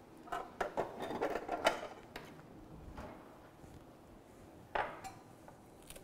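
Kitchen utensils and dishes clattering: a quick run of clinks and knocks in the first two seconds, then a single knock near the end.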